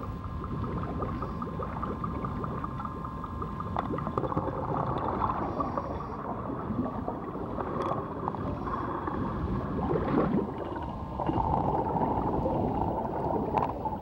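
Underwater ambience: a low, steady rush of water with gurgling.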